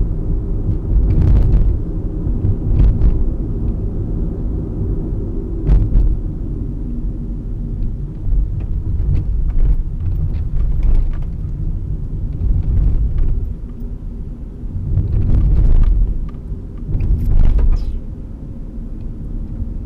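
Car driving slowly on a rough, cracked and patched road, heard from inside the cabin: a steady low rumble of engine and road noise, broken by short knocks and rattles every second or two.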